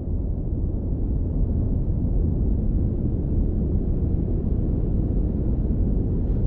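Wind blowing across a snowy mountainside: a steady, deep rumbling rush with no pitch.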